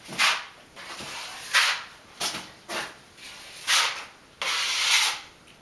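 Wide drywall knife spreading a thick first coat of joint compound along a bullnose corner bead, in about six scraping strokes, the last one longer, about a second.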